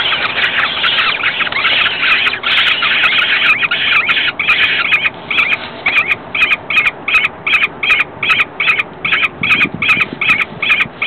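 Downy peregrine falcon chicks calling shrilly, at first in a dense continuous chittering, then about halfway through settling into a regular run of short calls, about three a second.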